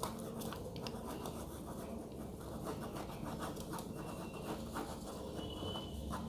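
Pen scratching on paper in many quick, short strokes, sketching root patterns.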